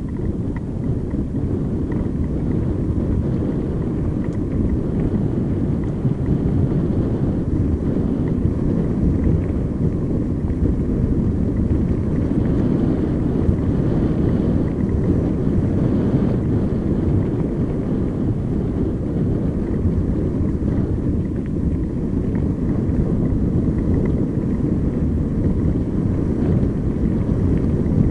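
Steady low rumble of wind buffeting an action camera's microphone, mixed with the sound of bicycle tyres rolling over a gravel track.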